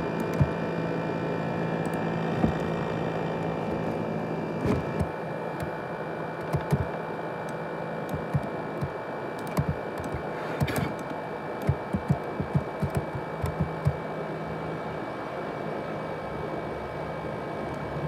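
ASUS X543UA laptop's cooling fan running loud and steady, a jet-engine-like rush with several steady whining tones in it. Scattered light clicks and taps sound over it, some in quick runs.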